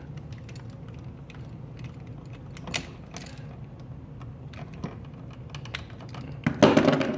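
Screwdriver tightening a terminal screw on a power outlet: scattered small clicks and scrapes of metal on metal, with a louder handling noise about six and a half seconds in.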